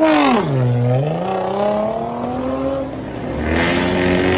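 Ford Mustang's engine revving hard: its pitch drops sharply within the first second, then climbs steadily as the car accelerates. About three and a half seconds in it turns louder and raspier.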